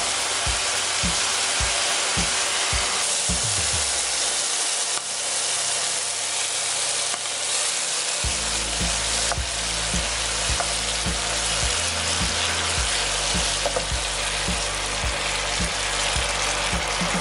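Shrimp sizzling in hot oil in a frying pan, stirred with a wooden spoon.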